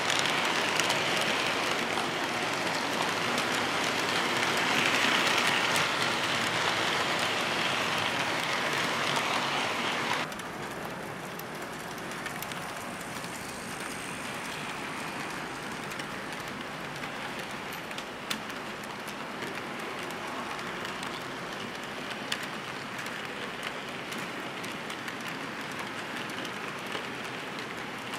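Metal wheels of an HO-scale model freight train rolling along the track: a steady rattling hiss with scattered small clicks. About ten seconds in it drops suddenly to a quieter level.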